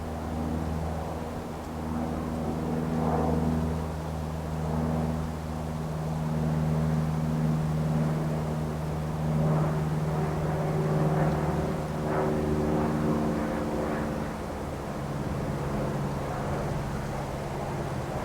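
An engine droning steadily with a low hum, its pitch shifting only slightly, over a rising and falling hiss of wind.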